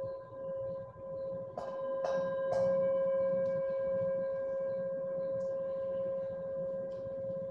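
Singing bowl ringing with a wavering, pulsing tone, then struck three times about half a second apart, each strike adding a brighter ring that sustains after it. A few faint light ticks follow. The sound signals the end of the final relaxation.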